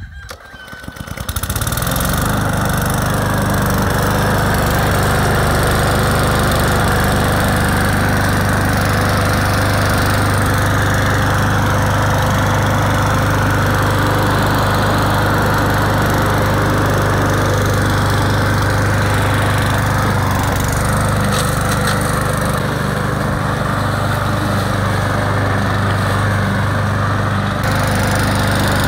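Husqvarna LC 140 S petrol lawn mower engine starting up about a second in, then running steadily at a constant speed.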